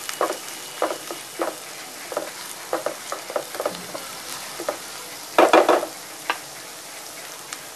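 Chopped vegetables sizzling in oil in a frying pan while a wooden spatula stirs them, scraping and knocking against the pan in irregular strokes. The loudest flurry of scrapes comes about five and a half seconds in; after that the stirring stops and a low sizzle goes on.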